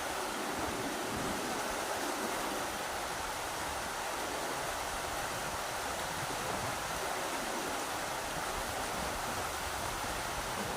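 Rushing river water, a steady, even roar of flowing current.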